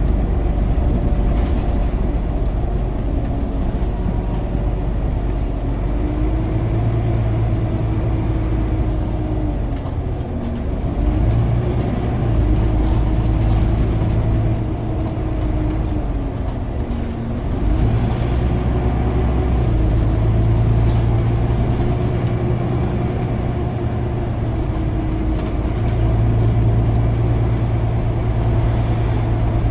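Scania OmniCity bus heard from inside the passenger saloon while driving: the diesel engine and drivetrain run with a heavy low rumble. The engine note dips twice, about a third of the way through and again a little past halfway, and climbs back each time as the bus slows and pulls on.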